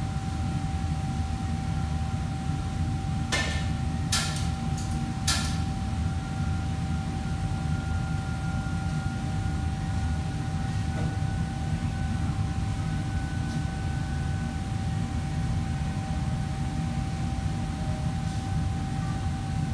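Steady low rumble of commercial kitchen machinery with a thin, constant whine above it. About four sharp clatters of kitchen utensils a few seconds in.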